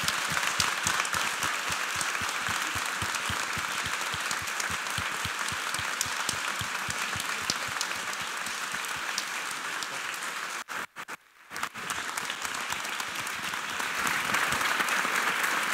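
An audience applauding, a dense patter of many hands clapping. It breaks off for under a second about two-thirds of the way in, then resumes and grows louder near the end.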